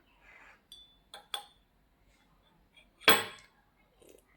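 Light clinks of hard objects, some ringing briefly, with one louder knock about three seconds in.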